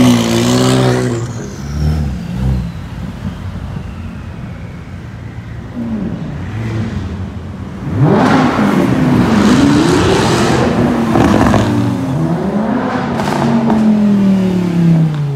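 Supercar engines accelerating past one after another, their pitch swinging up and down as they rev. A McLaren pulls away loudly at the start; after a quieter stretch, several cars rev hard from about halfway in, ending with a Lamborghini Huracán's engine note falling as it passes.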